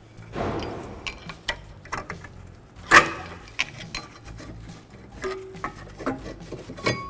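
Rear brake caliper bracket with its pads being worked loose from the knuckle and lifted off the rotor: scraping near the start, then scattered metal clanks and clicks, the loudest about three seconds in.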